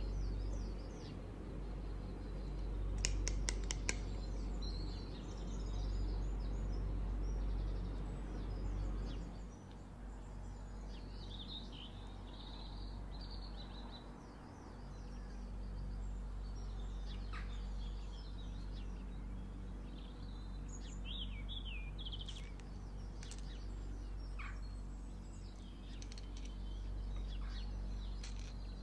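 Birds chirping now and then over a steady low background hum, with a quick run of sharp clicks about three seconds in.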